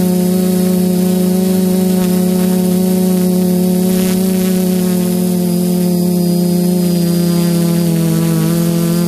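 Quadcopter's four brushless motors (Sunnysky 980 kV) driving 10x4.5 APC propellers, heard from the GoPro on the craft: a loud, steady buzz with a clear pitch that dips slightly about eight seconds in.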